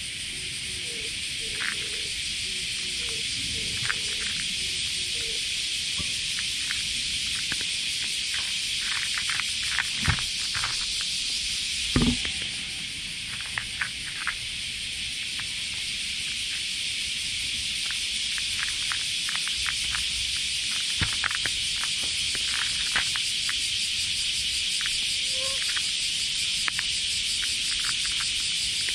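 A cat crunching dry kibble from a paper bowl: many short, crisp crunches, with a couple of louder knocks about ten and twelve seconds in. Behind it runs a dense, steady drone of summer cicadas.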